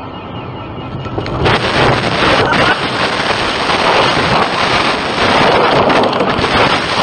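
A car leaving the road and crashing: a loud, rough rushing noise with a few knocks begins about a second and a half in and cuts off suddenly at the end.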